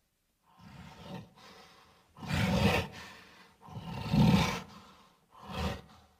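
Gorilla roar sound effects: a string of about five separate rough roars and grunts, the loudest two coming about two and a half and four seconds in.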